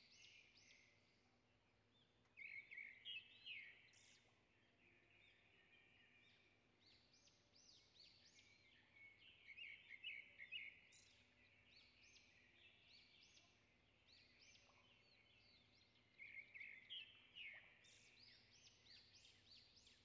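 Faint forest birdsong: spells of quick, high chirping notes, three times, over a quiet background.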